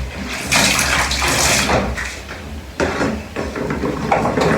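Water running and splashing as cut pumpkin pieces are washed. It comes in spells: a long one of about a second and a half, then two shorter ones.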